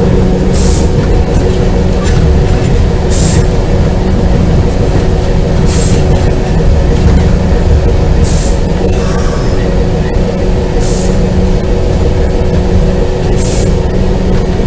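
Alco RS8 diesel-electric locomotive running steadily under way, heard from on board: a loud, even engine drone. A short high-pitched hiss comes and goes about every two and a half seconds.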